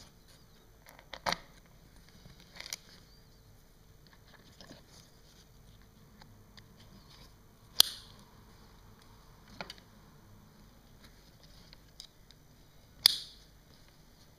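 Sharp plastic clicks and knocks from a C-Bow softbag's mounting plate and twist-lock as it is handled and latched onto the carrier. Two loud clicks, one about halfway through and one near the end, with a few fainter knocks between.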